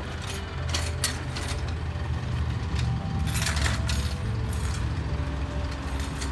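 A vehicle engine idling with a steady low hum, over a few metallic clicks and rattles of handling gear, most of them about a second in and between three and four seconds.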